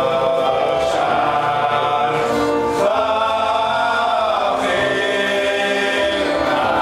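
Voices singing a slow melody together in long held notes, with the tune shifting to new notes about three seconds in and again past the middle.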